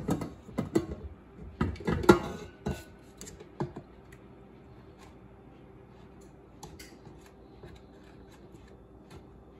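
Clicks and metallic knocks of a stainless-steel stand-mixer bowl being unlocked and lifted off its base and handled, with a spatula knocking in it. The clatter is densest in the first three seconds, then thins to a few faint ticks.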